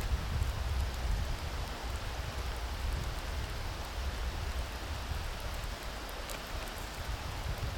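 Steady rushing of a mountain stream, with a low uneven rumble underneath and a few faint ticks.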